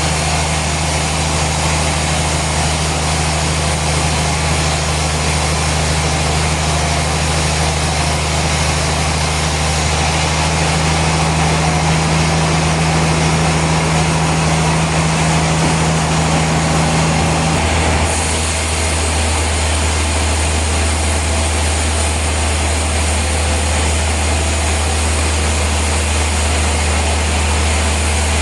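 Heavy machinery running steadily: a loud low hum under a broad hiss, with no cutting strokes. The hum changes pitch abruptly about two-thirds of the way through, as if switching to another machine.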